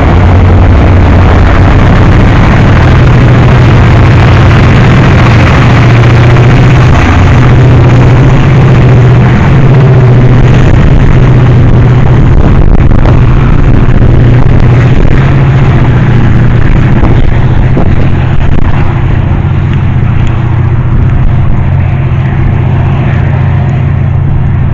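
MPI MP36PH-3C diesel locomotive with its 16-cylinder EMD 645 prime mover working under power as it shoves the departing commuter train away, a loud steady engine drone. It eases off slightly after about 18 seconds as the train draws away.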